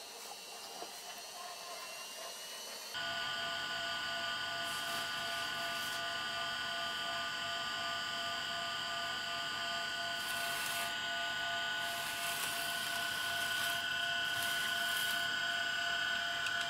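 Sperry aircraft directional gyro's rotor motor spinning up: a high whine rising in pitch for about three seconds, then a steady whine of several tones that grows slightly louder as the rotor comes up to speed and the gyro becomes rigid. A few light ticks near the end.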